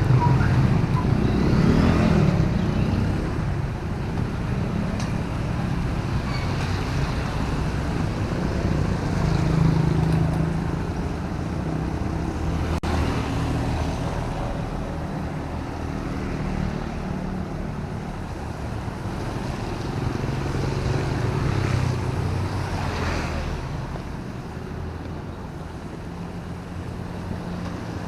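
City road traffic in drizzling rain: vehicle engines running and passing, swelling and fading several times over a steady background hiss.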